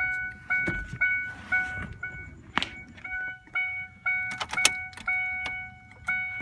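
2003 Ford Ranger's dashboard warning chime, dinging steadily about twice a second with a short break in the middle. A few sharp clicks and knocks sound over it.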